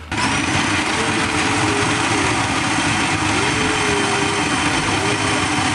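Electric food processor switched on and running steadily, its blade chopping raw cauliflower florets into rice-sized grains.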